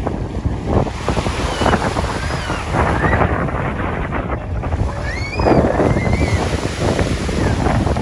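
Wind buffeting the microphone over choppy lake water, with small waves washing steadily. A few short, high, wavering calls come through about two seconds in and again past the middle.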